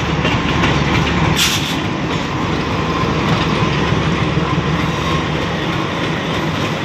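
A WDM3D diesel-electric locomotive passing close by at low speed. Its ALCO 16-cylinder engine runs with a steady low drone under the rumble of wheels over rail joints. A brief sharp high hiss comes about a second and a half in.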